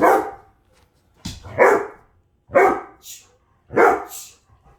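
Alaskan husky barking: four loud barks, about one a second.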